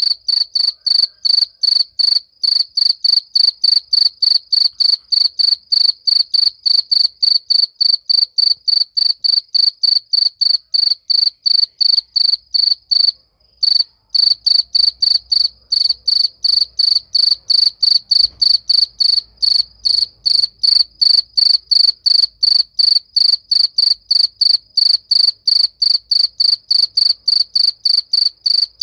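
A cricket chirping loudly: a high, pure chirp repeated steadily about three times a second, with one brief break about halfway through.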